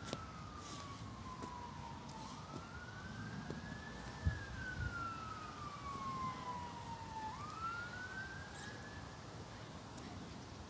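Emergency vehicle siren wailing faintly: one tone rising quickly and falling slowly, about every five seconds, fading out near the end. A single knock about four seconds in.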